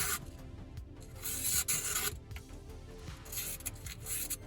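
A freshly sharpened pocketknife blade slicing through paper, a few separate hissing cuts, the clean slicing that shows a very sharp edge.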